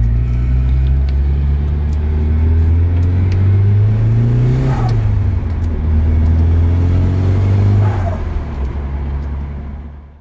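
Nissan Silvia S14's engine accelerating, heard from inside the cabin: its pitch climbs, drops at a gear change about five seconds in, and climbs again. Near the end it eases off and fades out.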